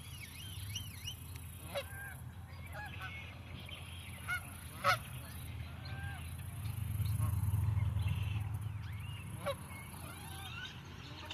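Birds calling: a stream of short chirps and whistles, with a few louder, sharper calls scattered through it. A low rumble swells and fades in the middle.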